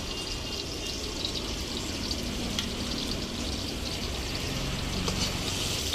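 Chopped garlic sizzling steadily in hot oil in a pan, frying for chicken chilli.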